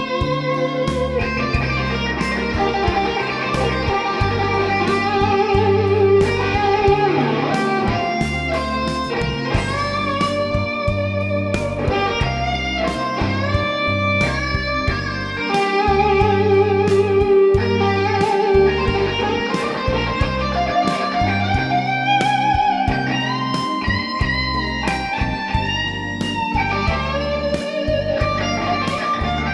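Overdriven electric guitar playing a blues-rock lead with long held notes that waver with vibrato, over a backing of bass and drums.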